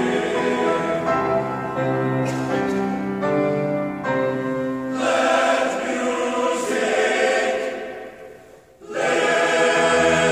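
Men's chorus singing held chords in a concert hall. The sound dies away at the end of a phrase about eight seconds in, and the full chorus comes back in loudly about a second later.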